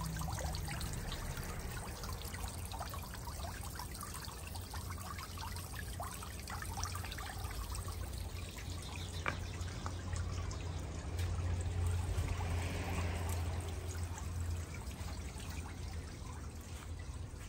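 Garden pond fountain spraying water that splashes steadily onto the pond surface, with a steady low rumble underneath that is strongest in the middle.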